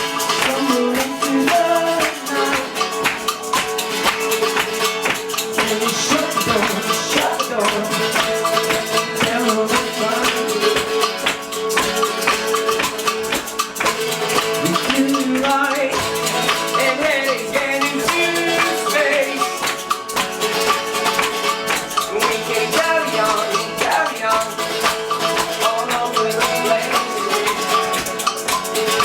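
Live band music: a song with sustained held notes and hand percussion shaken in a steady, fast rhythm.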